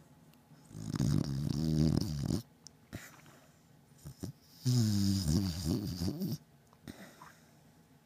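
Beagle in deep sleep, snoring loudly: two long snores, each just under two seconds, about two seconds apart.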